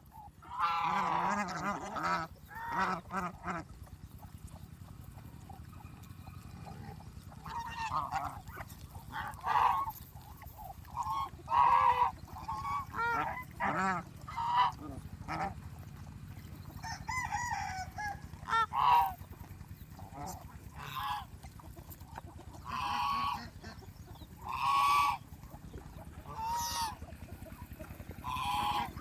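Domestic geese honking: short calls over and over, some in quick runs, with other farmyard fowl among them.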